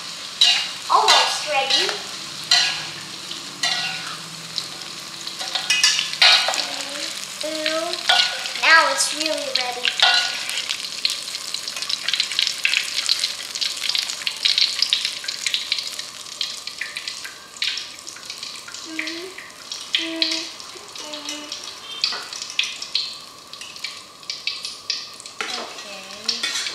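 Tofu cubes frying in hot oil in a wok, sizzling steadily, with frequent scrapes and clinks of a metal mesh strainer and slotted spatula stirring the pieces and lifting them out.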